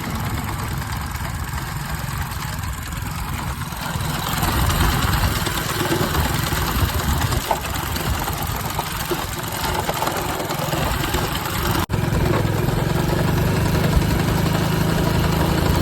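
A Hero Honda motorcycle's single-cylinder engine running with a continuous rumbling, rattling noise from inside the gearbox. The noise is caused by bent and cracked teeth on the third-gear sprocket, which make the output shaft jerk. The sound cuts out briefly about 12 seconds in and then carries on.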